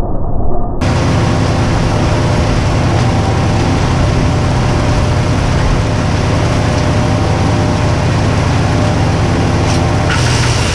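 Cobra gravity-fed wood chipper running steadily with a petrol engine drone, cutting in abruptly about a second in. Near the end a harsher hiss swells briefly over the engine.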